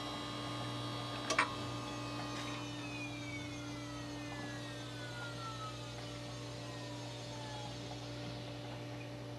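Desktop PC hard drive spinning down at system shutdown. There is a click about a second and a half in, then a slowly falling whine over about five seconds, over a steady hum.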